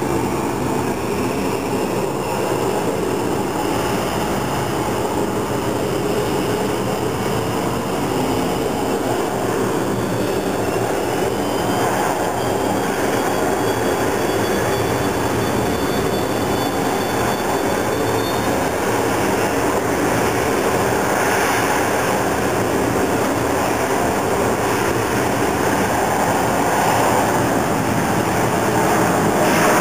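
Jet airliner's engines at takeoff thrust: a steady, loud roar of jet blast, with a turbine whine that rises in pitch between about ten and eighteen seconds in.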